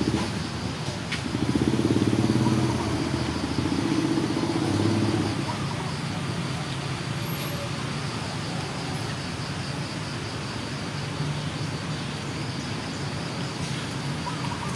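A motor engine running nearby, louder for a few seconds from about a second in, then settling to a steady low hum.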